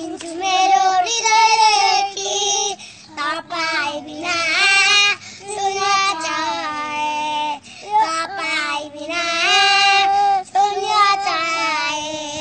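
Young boys singing loudly in short, high-pitched phrases without any instrument, broken by brief pauses for breath.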